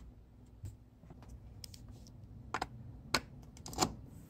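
About half a dozen soft clicks and knocks as a USB cable is handled and its plugs are pushed into the ports, over a faint low hum.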